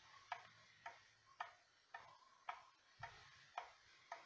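Faint, even ticking of a 1987 Ethan Allen skeleton wall clock's mechanical movement, about two ticks a second.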